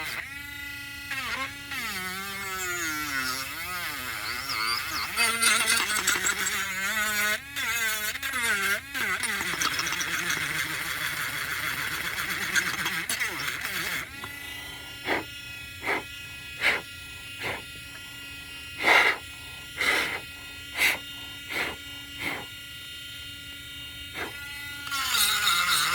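Small electric sanding tool motor running. Its pitch wavers and dips over the first several seconds as it is worked against the piece, then it settles into a steady whine broken by about ten short, sharp bursts. It winds down near the end.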